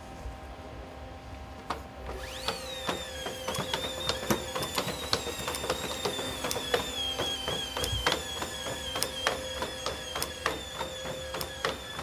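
Boston Dynamics four-legged robot walking: a high motor whine that comes in about two and a half seconds in, sweeps up briefly and then holds steady, over rapid irregular clicking and tapping from its legs and feet.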